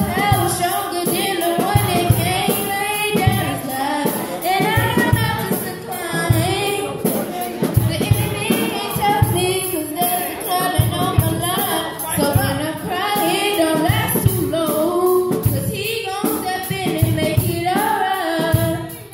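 Live church music: singing voices, a woman's among them, carrying a melody over a steady beat from a Tama drum kit played on the drums and cymbals.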